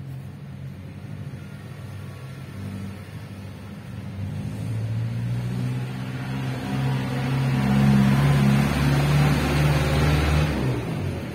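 An engine running, growing steadily louder over several seconds and then dropping away shortly before the end.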